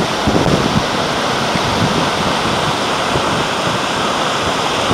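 Shallow river rushing over rocks and sandstone ledges: a steady, loud rush of water.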